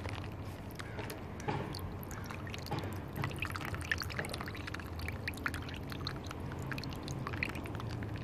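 Water trickling from a hole in a plastic Ziploc bag into a plastic to-go container already holding water, with many small splashes and drips.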